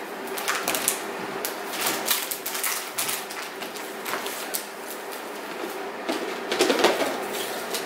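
Gift wrapping and packaging rustling and crinkling as presents are unwrapped, with irregular crackles and a louder burst of handling about seven seconds in.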